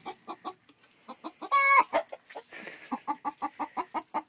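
A hen in a nest box clucking in a fast, even run of about six clucks a second, scolding at being disturbed on her nest. About one and a half seconds in, a single loud, drawn-out squawk cuts across the clucking.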